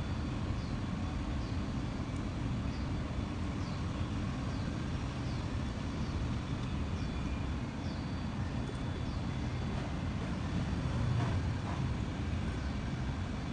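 Steady low background rumble with a faint, short high chirp repeating at fairly even short intervals.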